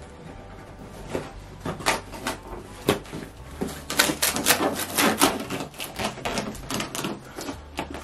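Cardboard guitar box being handled and torn open: a quick run of crackling rips and knocks, starting about a second in and thickest in the middle.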